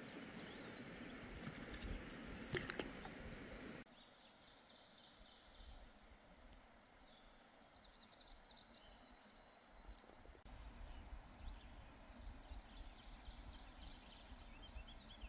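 Faint outdoor ambience with small birds chirping in short, high, repeated calls. A few sharp clicks sound near two seconds in; the background hiss drops suddenly about four seconds in, and a low rumble comes back about ten seconds in.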